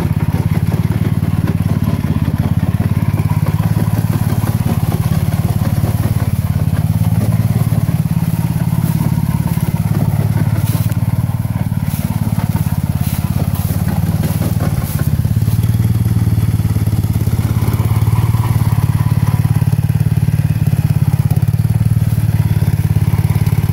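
16 hp Tecumseh OH160 single-cylinder engine of a 1970 Sears Suburban lawn tractor running steadily as the tractor is driven. Brief clicks and crackles come about halfway through.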